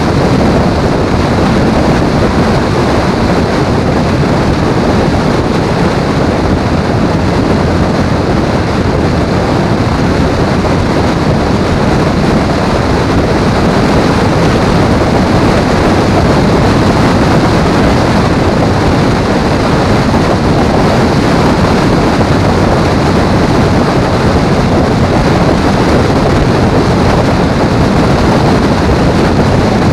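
Loud, steady wind rush and engine noise from a motorcycle cruising at highway speed, with wind buffeting the bike-mounted microphone.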